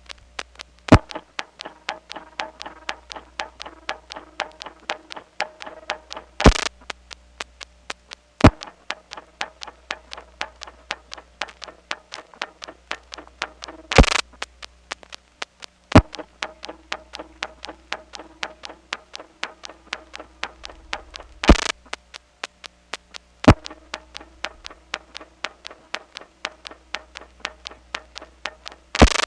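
Step-by-step telephone exchange supervision test circuit heard over the phone line: rapid, even relay and switch clicking over faint steady line tones and hum, with a louder burst of noise about every seven seconds as the circuit goes off and on hook. The speaker takes the on-off timing to come from the office's reorder timing, with a stepping switch resetting at each hang-up.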